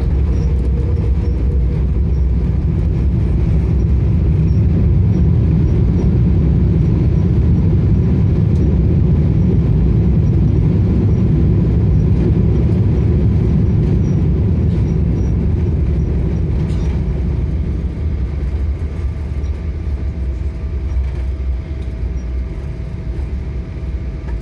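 Boeing 777 cabin noise during the landing rollout: a loud, steady low rumble of the engines and the wheels on the runway. It eases off after about 17 seconds as the airliner slows.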